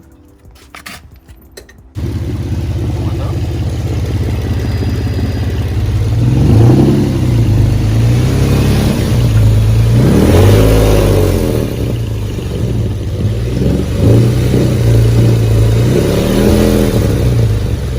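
Car engine starting up suddenly about two seconds in, then revved up and back down several times, loud through test pipes.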